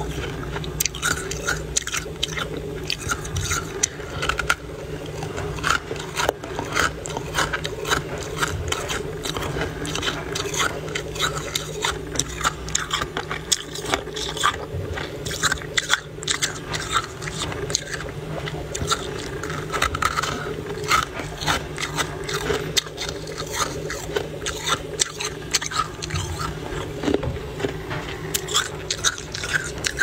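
Thick, feathery freezer frost being crunched and scraped: a dense, irregular run of squeaky crunches, several a second, over a steady low hum.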